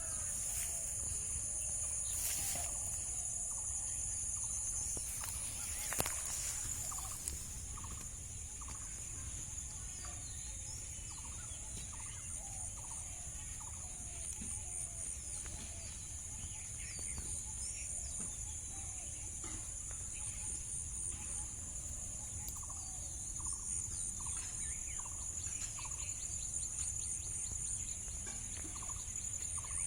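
Outdoor ambience: a steady high-pitched insect drone, with short bird calls repeating in little clusters through it and a low rumble underneath.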